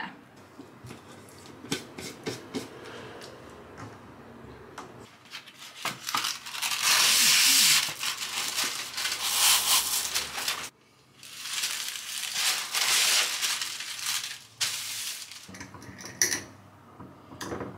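Baking parchment rustling and crinkling as a sheet is handled, in two long, loud stretches with a brief break between. Light clicks and knocks of kitchen things being handled come before it, and near the end the wire clip-top lid of a glass Kilner jar clicks open.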